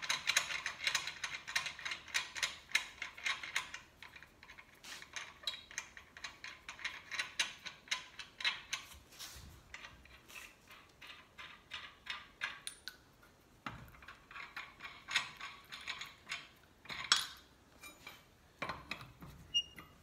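Steel lug nuts being spun off a truck's wheel studs by hand: a rapid, ratchet-like clicking of nut on thread. It comes in runs with short pauses between, busiest at the start.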